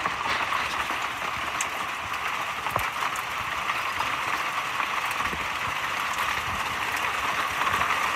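Hail and rain coming down steadily: a dense, even hiss of falling precipitation with scattered sharp ticks of individual hailstones striking.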